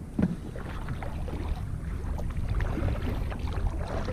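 Kayak paddling: light splashes and drips from the paddle with water lapping at the hull, over a low rumble of wind on the microphone.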